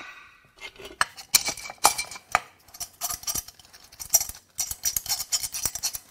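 Rapid light metallic clicks and clinks as the bedplate of a Mini Cooper S N14 engine is worked loose and lifted off the block after its bolts are out.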